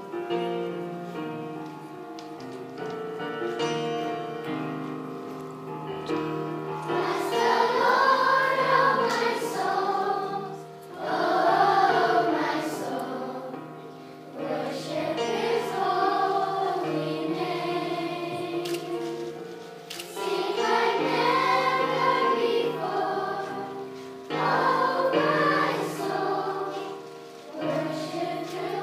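A school children's choir singing a song over an instrumental accompaniment. The voices come in about seven seconds in, after the accompaniment alone, and sing in phrases with short breaks between them.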